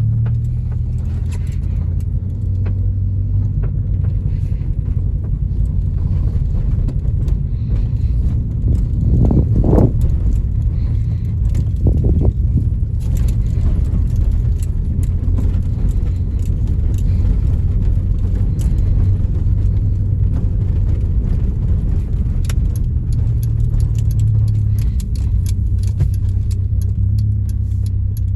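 Honda Civic EJ9 being driven with its automatic gearbox, a steady low engine and road rumble heard from inside the cabin, with a small rattle like keys. The engine is misfiring on all four cylinders (Honda fault codes 71–74). A brief louder swell comes about a third of the way in.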